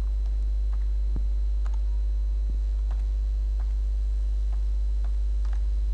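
Steady low electrical mains hum on the recording, with a few faint, irregular ticks.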